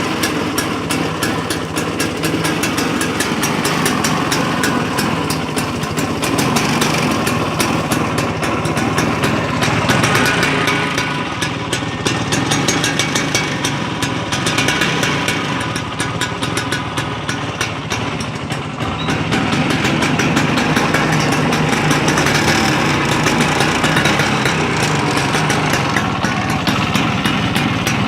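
1995 Vespa Exclusive scooter's two-stroke single-cylinder engine running, its speed and loudness swelling and easing a few times.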